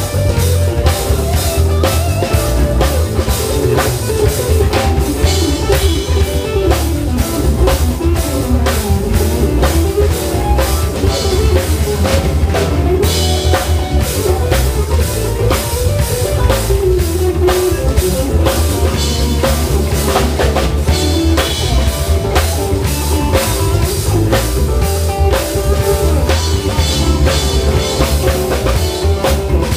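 Live jazz band playing, with the drum kit prominent over electric bass, electric guitar and keyboard, and a dense, steady run of drum strokes throughout.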